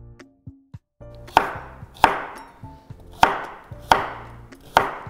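Chef's knife chopping carrot sticks into chunks on a bamboo cutting board: five sharp strikes of the blade on the wood, the first about a second and a half in, then roughly one every two-thirds of a second.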